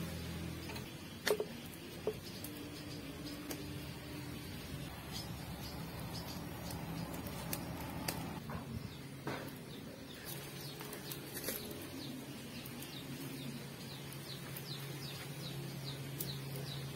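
Two sharp knocks about a second and two seconds in, then light handling noise over a steady low hum. Runs of short, high chirps from birds come in the second half.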